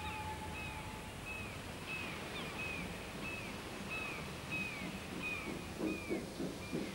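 A steam locomotive's whistle, one steady tone, ends about a second in, over a steady hiss of venting steam. A small bird calls over and over with a short falling chirp, about one every two-thirds of a second, and a few low uneven pulses come near the end.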